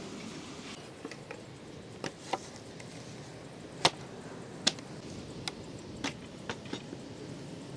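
Wooden parts of a folding wooden rack knocking and clacking together as the frames and slatted shelves are handled and fitted. About ten separate sharp knocks, the loudest about four seconds in.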